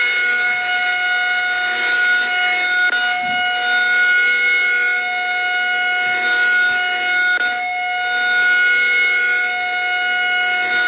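Outdoor tornado warning siren sounding a steady tone, held at one pitch, gently swelling and easing in loudness.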